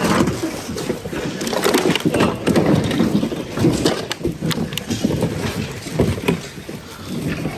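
Hand rummaging through a bin of mixed goods: irregular rustling of plastic packaging and fabric with scattered light knocks and clatters as items are pushed aside.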